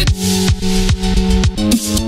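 Electronic dance music: a deep kick drum about twice a second under a held synth tone, with hissy swells in the highs.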